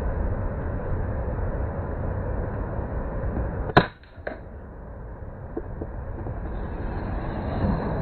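A single air-rifle shot from an Uklik bullpup: one sharp crack a little under four seconds in, followed by a softer click about half a second later. A steady rush of river water runs underneath.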